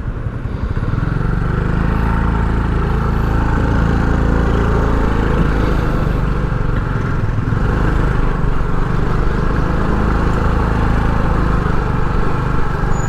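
Motorcycle engine running steadily on the move, with road and wind noise. It gets a little louder about a second in, then holds even.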